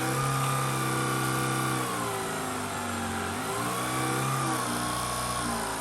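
Shark ICZ300UKT cordless upright vacuum cleaner running on eco mode over carpet, its motor hum dipping and rising in pitch every couple of seconds. The noise of its fins runs along with the motor.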